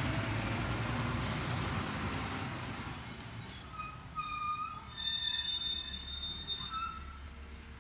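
Garbage truck rolling along with a low engine rumble. About three seconds in, a loud high-pitched metallic squeal of several held tones starts and lasts about four and a half seconds.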